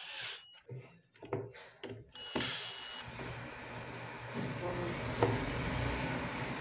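A cordless drill-driver runs briefly, driving a screw into the corner of a plastic frame, with a short high whine. Clicks, knocks and a longer stretch of rustling handling noise follow as the parts are moved.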